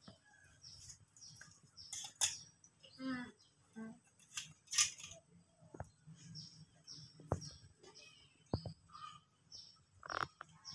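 Quiet outdoor ambience: repeated short high chirps, several sharp clicks, the loudest about two and five seconds in, and a brief faint voice.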